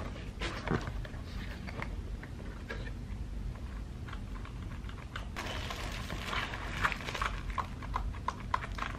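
Typing test on a new Royal Kludge mechanical keyboard with red linear switches: scattered key clicks at first, then quicker, steadier typing over the last few seconds.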